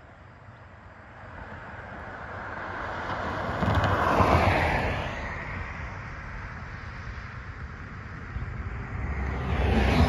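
Two road vehicles passing close by, one after the other: tyre and engine noise swells to a peak about four seconds in and fades, then a pickup truck swells past near the end.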